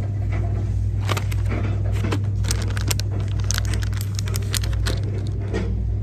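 Plastic blister packaging of pen packs crinkling and clicking as it is handled, in quick irregular crackles that are busiest about halfway through, over a steady low hum.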